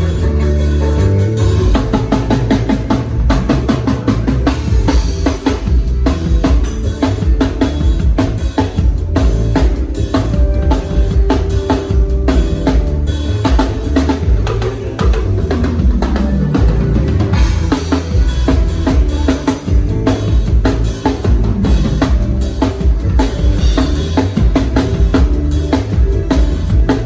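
Drum kit playing a steady groove of kick drum and snare with rimshots, along with a band's pitched instruments such as bass.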